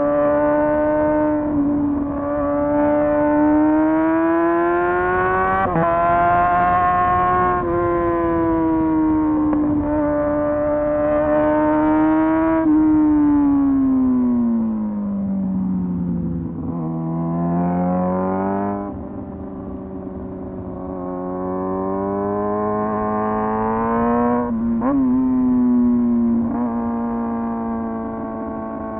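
Motorcycle engine running steadily at high revs, its pitch drifting with the throttle, sagging down over a couple of seconds past the middle and picking back up, with a few short sharp breaks.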